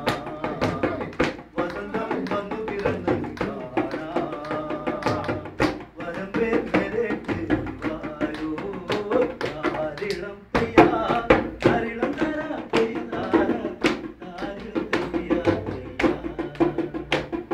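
People singing together to a beaten rope-tensioned hand drum, with hand claps keeping the rhythm.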